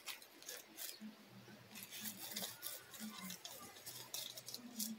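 Dry leaves, twigs and brush rustling and crackling in short irregular bursts as a small long-haired dog scrambles and pounces through the undergrowth.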